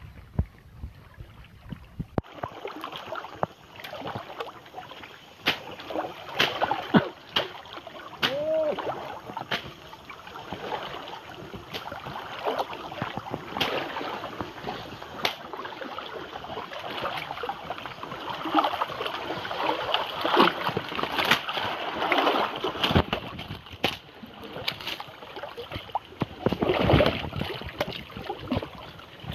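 People wading through thigh-deep water, legs sloshing with repeated irregular splashes.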